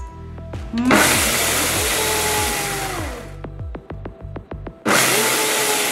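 Ninja 3-in-1 blender grinding dry rice on its Auto-iQ Max Blend program. The motor starts about a second in with a loud rush of grains against the jar, slows and stops after about two and a half seconds, then a quick run of ticks follows before it starts again near the end.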